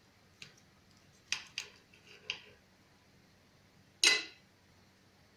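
Knife and fork clinking against a glass plate while a sausage is cut: a few light taps in the first half and one louder clack about four seconds in.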